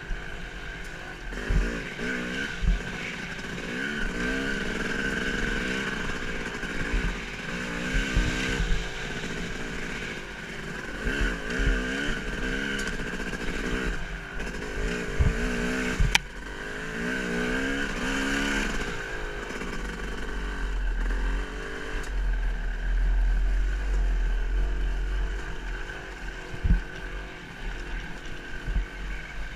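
Off-road ride down a rough dirt trail heard from a camera mounted on the rider or bike: frequent knocks and rattles as it jolts over bumps, wind rumble on the microphone, and a pitched drone that keeps rising and falling in pitch.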